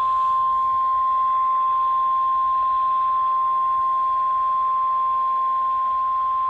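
NOAA Weather Radio 1050 Hz warning alarm tone: one steady, unbroken tone over a light radio hiss, the signal that a warning message follows.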